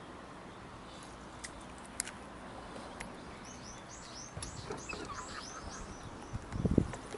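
A songbird sings a quick run of about ten falling chirps through the middle, over a faint outdoor hiss with a few light ticks. Near the end comes a short low rumbling thump, the loudest sound.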